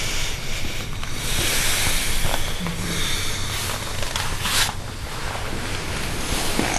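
Steady hiss over a low hum, with a brief noise about four and a half seconds in.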